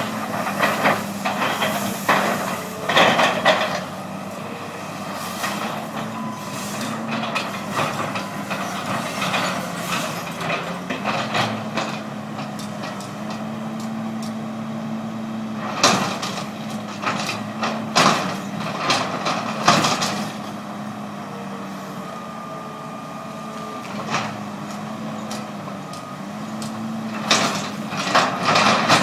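A large engine running steadily, with clusters of sharp knocks and clatters near the start, around the middle and near the end.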